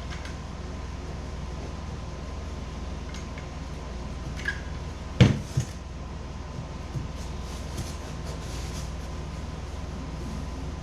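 A steady low hum with a few light taps and one louder double knock about five seconds in, from wooden plywood pieces being handled and fitted against the kayak's foam.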